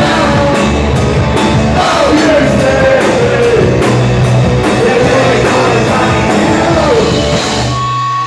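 Punk rock band playing live: electric bass, guitar and drums with a man singing. The band stops abruptly near the end, leaving a steady hum.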